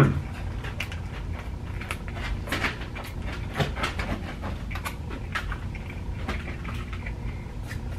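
Close-up chewing of a mouthful of fried chicken sandwich with crunchy Cheetos: irregular soft wet clicks and smacks from the mouth over a low steady hum.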